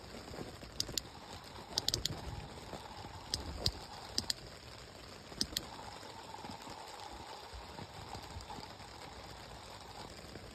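Rain falling on a tent: a steady hiss with scattered sharp taps of single drops on the fabric, most of them in the first half.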